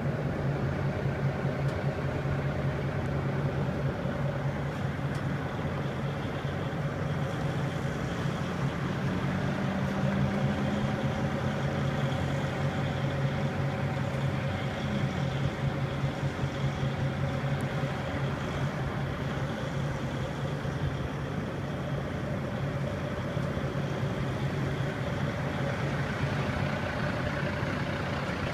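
2011 Kenworth T660 semi truck's diesel engine idling steadily.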